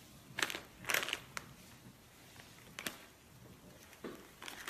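Potato chip bag crinkling and chips being crunched, in several short crackly bursts.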